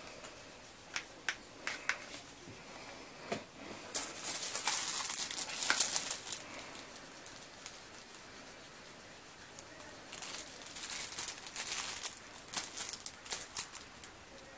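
Hand handling noise from a plastic TV remote being picked up and moved: scattered sharp clicks and two longer spells of rustling, about four and ten seconds in.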